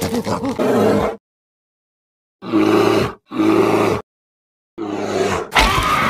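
Dubbed monster growls and roars standing in for a snarling grasshopper, in four short bursts that start and stop abruptly with dead silence between them. The last burst is the loudest and has a sharp attack near the end.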